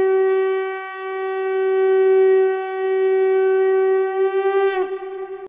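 Conch shell (shankha) blown in one long held note with a rich, horn-like tone. It swells and eases slightly in loudness and breaks off with a drop in pitch about five seconds in.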